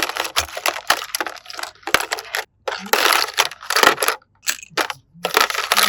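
Toy packaging being unwrapped and handled: irregular bursts of crackling with a few sharp clicks.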